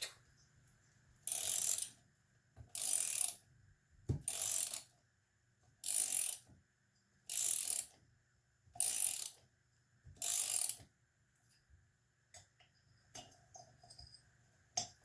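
Ratchet handle clicking in seven even strokes, about one every second and a half, while backing out screws already loosened from a Yamaha QT50 engine case; a few small clicks near the end.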